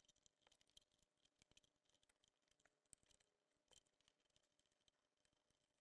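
Near silence, broken by a few very faint short clicks.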